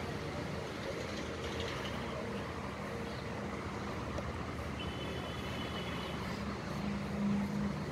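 Steady background of road traffic with a vehicle engine hum that grows a little louder near the end, and a faint high tone for about a second around the middle.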